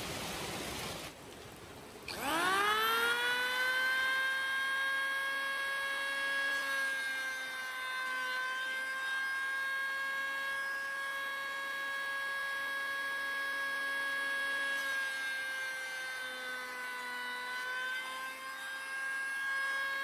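A hand-held electric power tool's motor spins up about two seconds in and runs steadily at high speed with a high whine, dipping slightly in pitch twice. Before that, a rushing noise cuts off about a second in.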